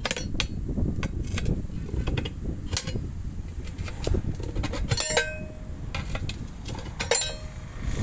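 Steel tyre levers clanking and scraping against a steel tractor wheel rim as the tyre bead is levered over it: a series of sharp metallic clinks, the loudest about five and about seven seconds in, each ringing briefly.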